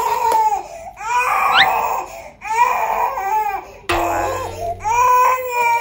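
Baby crying in a run of separate wailing cries, each about a second long with short breaths between.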